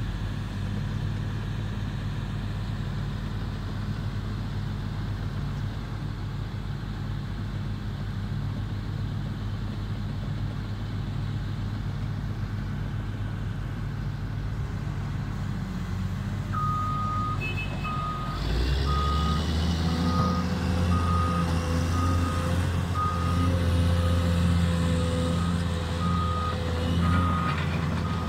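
Caterpillar hydraulic excavator diesel engine idling steadily during its morning warm-up. About two-thirds of the way in a travel alarm starts beeping a little more than once a second, and shortly after the engine speeds up and gets louder as the machine is set moving.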